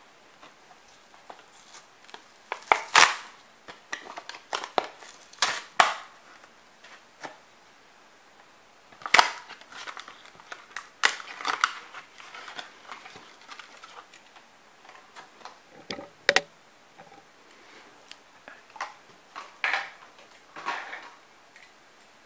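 Stiff plastic blister packaging of a diecast toy car being pried and torn open from its cardboard backing: irregular crackles, rustles and sharp snaps of plastic, a few of them much louder than the rest.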